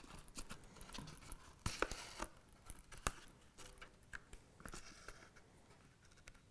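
Faint handling sounds of hand saddle stitching leather: two needles and thread drawn through the stitch holes, with scattered small clicks and rustles and a short scratchy pull about two seconds in.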